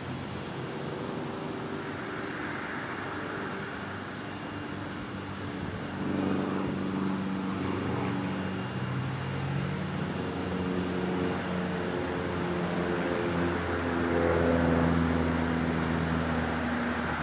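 Road traffic: car engines passing along a street, their hum shifting up and down in pitch, growing louder about six seconds in and loudest near the end.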